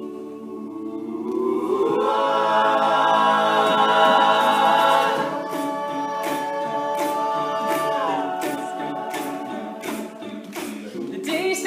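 All-male a cappella group singing wordless sustained chords that swell and rise in the first couple of seconds; about halfway through a regular percussive beat, about two strokes a second, joins the held harmonies.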